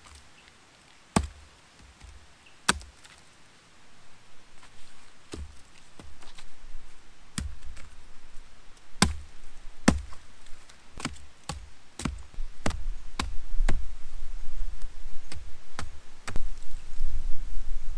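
Axe chopping wood: sharp, separate strikes at an uneven pace, a few seconds apart at first and coming faster from about ten seconds in, over a low rumble.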